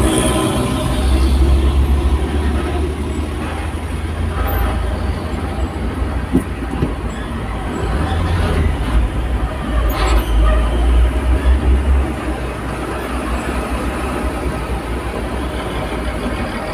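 Low vehicle rumble heard from inside a car cabin while moving at crawling speed, swelling about a second in and again for a few seconds near the middle.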